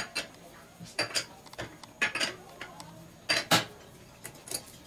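Sharp metallic clinks and clicks of a socket tool on the camshaft bearing-cap bolts of a Fiat Ducato / Peugeot Boxer cylinder head as the camshaft is being dismantled, coming in quick pairs about a second apart.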